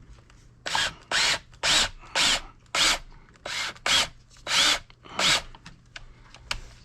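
A powered wire-stripping tool run in about a dozen short bursts in quick succession, each with a whine that rises and falls as it spins up and stops, while scrap wire is stripped.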